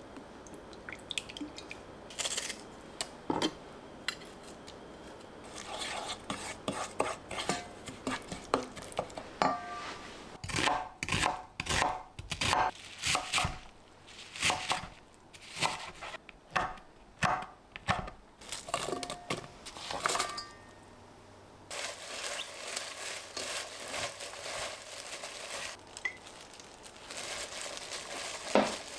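Kitchen utensils and dishes knocking and clinking, with a run of sharp knocks about two a second in the middle and a rustling noise near the end.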